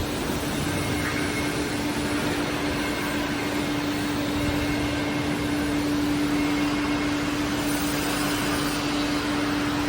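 Air-bubble fruit and vegetable washing machine running: a constant rushing noise with a steady motor hum.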